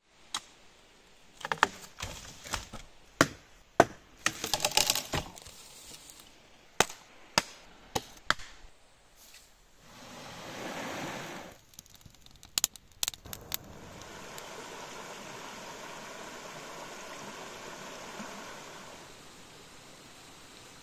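A run of sharp knocks and scrapes from a shovel digging into forest soil and roots, followed by the steady rush of a shallow mountain river flowing over rocks. The digging strikes come in a quick series over the first several seconds, with a few more about halfway through.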